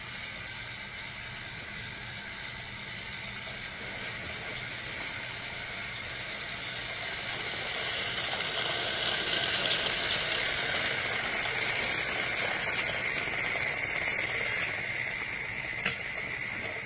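Battery-powered toy trains running on plastic track: a steady small-motor whine with gear and wheel rattle. It grows louder from about six seconds in, with a single click near the end.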